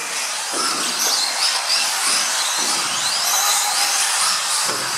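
Several electric RC model cars racing, their motors whining at high pitch and rising and falling in pitch as they speed up and slow down.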